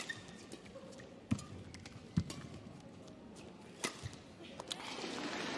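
Badminton rally: sharp racket strikes on the shuttlecock and thuds of players' footwork on the court, one knock every second or so, two of them heavier. Near the end a louder, steady wash of noise rises as the point ends.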